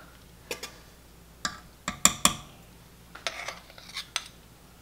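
Metal spoons clinking and scraping against a stainless steel mixing bowl while cookie dough is scooped out: about seven short, separate clinks, the strongest a little over two seconds in.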